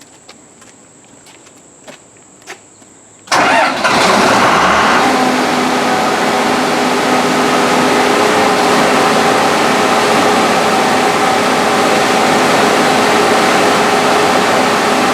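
Onan 80 kW diesel generator's Cummins six-cylinder turbo diesel starting a little over three seconds in: it catches quickly after a brief crank and then runs steadily. A few faint clicks come before the start.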